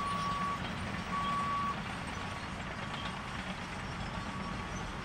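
Heavy machinery's backup alarm beeping about once a second, a single steady tone, over a steady low machinery rumble. The first two beeps are loudest, and the rest are fainter.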